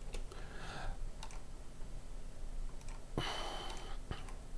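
Computer mouse and keyboard clicks, a handful of scattered sharp clicks, with a brief louder rustling noise about three seconds in.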